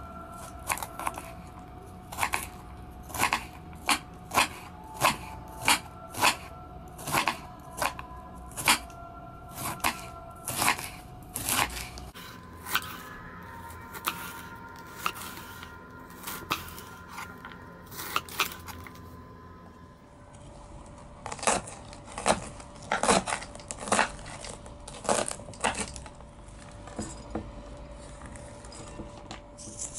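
Kitchen knife shredding a head of cabbage on a bamboo cutting board: a crisp crunch and knock of the blade on the board with each cut, about two cuts a second. The cutting pauses for a couple of seconds about two-thirds of the way through, then resumes briefly and stops.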